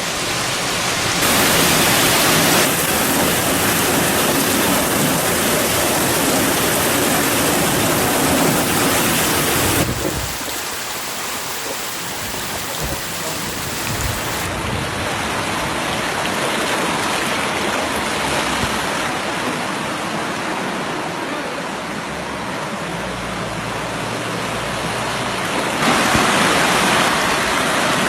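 Floodwater rushing, a steady dense noise that shifts abruptly in loudness and tone a few times.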